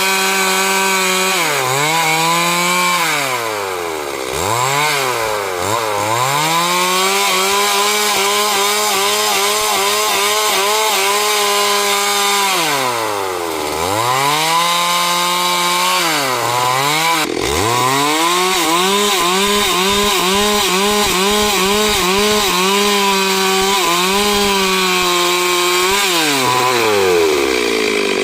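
Stihl MS 382 two-stroke chainsaw running at full throttle cutting wood, its engine pitch held high for long stretches and dropping back toward idle before revving up again several times.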